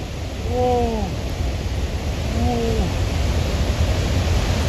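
Swollen mountain river in flash flood, muddy water rushing past in a heavy, steady roar. Two brief calls rise and fall in pitch over it, about half a second in and again about two and a half seconds in.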